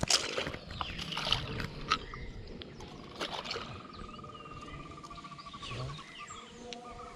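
A few knocks and splashes around the boat in the first two seconds. Then, from about three seconds in, an animal call: a long, evenly pulsed trill on one pitch lasting about three seconds, with faint chirps around it.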